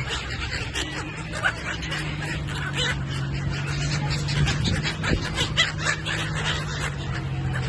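A flock of gulls calling, with many short overlapping cries, over a steady low hum.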